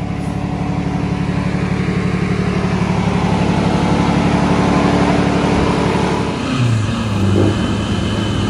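BMW M57 straight-six twin-turbo diesel in a Nissan Patrol running steadily with the hood open. About six seconds in, it changes to the engine revving under load, its pitch rising and falling as the Patrol climbs a dirt trail.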